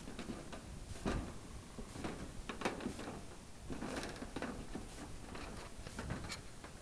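Irregular knocks, scrapes and rattles as a roll of PVC-coated welded wire mesh is handled on a corrugated metal roof.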